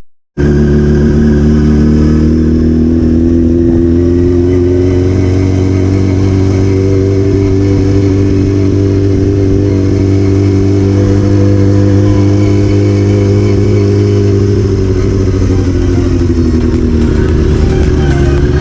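Yamaha R6's inline-four engine running steadily under way at constant revs, with the note falling a little about three-quarters of the way through as the bike eases off.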